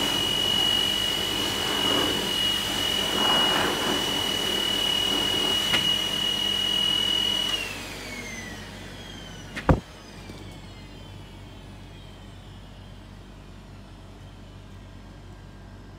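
High-velocity dog force dryer blowing with a loud high whine, then switched off about halfway through, its motor whine falling as it spins down. A single sharp knock comes a couple of seconds later.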